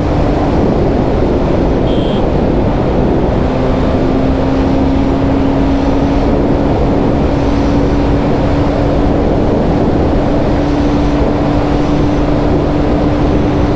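TVS Apache RR 310's single-cylinder engine running steadily at highway cruising speed, with wind noise over the microphone. The engine note holds an even pitch with no gear changes.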